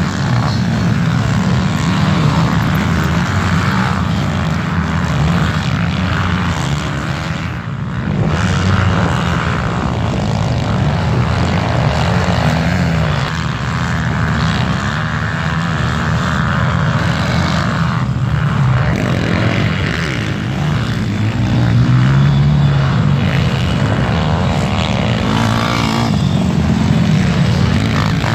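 Several pit bike engines racing at once, revving up and down as the bikes come through a dirt corner one after another, the nearest bike loudest as it passes.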